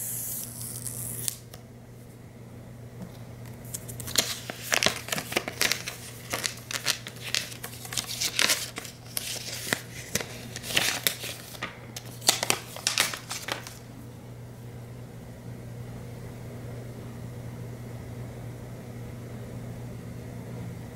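A paper tear strip ripped along a white Apple Watch box at the start, then a run of sharp crackles and scrapes as the box's flaps are opened and the packaging handled, from about four to fourteen seconds in. A steady low hum lies underneath throughout.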